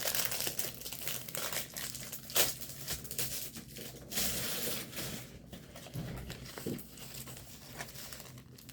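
Plastic packaging crinkling and rustling as it is handled and opened, with a few sharper crackles.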